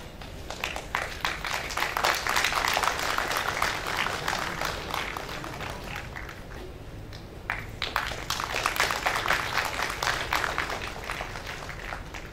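Audience applauding in two rounds. The first dies down about six seconds in, and the second starts about a second and a half later.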